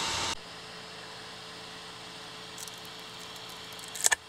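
A 3D printer running with a steady whirr that cuts off abruptly about a third of a second in, leaving a faint steady electrical hum. Near the end come a few light clicks as a small printed part is handled on the print bed.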